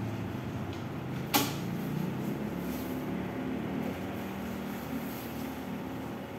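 Tent nylon rustling as it is handled and unpacked, with one sharp click about a second and a half in, over a steady low hum.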